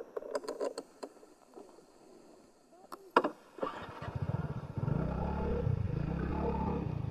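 A TVS NTorq 125 scooter's single-cylinder engine starting about three and a half seconds in, after a few clicks and a knock, then running with its pitch rising and falling a little.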